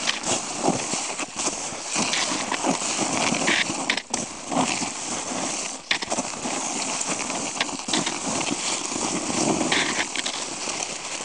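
Fischer cross-country skis scraping and crunching over snow with an ice crust, the crust crackling and breaking irregularly under them.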